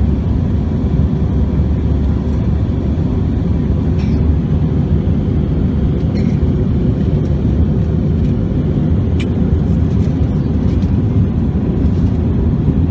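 Steady cabin noise inside an Airbus A321-200 in flight: the low rumble of the engines and rushing air over the fuselage, with a faint steady whine above it.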